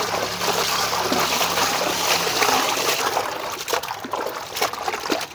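Water poured from an aluminium pot into a large aluminium basin of cut, turmeric-coated fish pieces, pouring steadily for about three seconds; after that, hands slosh and rub the pieces in the water with irregular splashes as the fish is rinsed.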